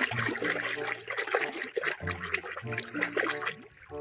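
Water splashing and trickling with small wet clicks as a muddy toy animal is washed clean, over soft background music with a steady bass line.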